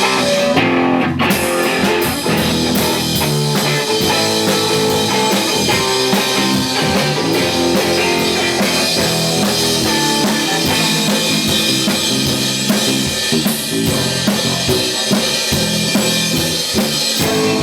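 Rock band playing an instrumental intro: drum kit, electric guitars and bass guitar together, with a steady beat.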